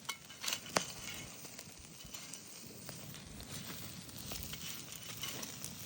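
Campfire hissing and crackling, with a few sharp pops in the first second.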